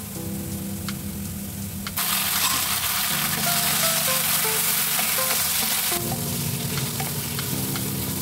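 Diced tomatoes hitting hot oil with frying onion and garlic in a nonstick wok: a loud sizzle starts suddenly about two seconds in and eases a little after about six seconds, with a wooden spatula stirring through it.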